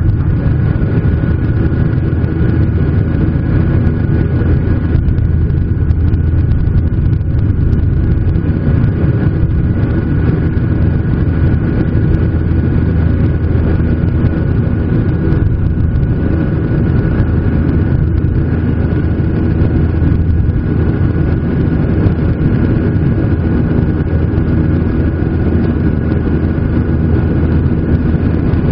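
Loud, steady cabin roar of a Boeing 737-800 under power: the CFM56-7B turbofans and rushing air make an even low rumble, with a faint steady high tone above it.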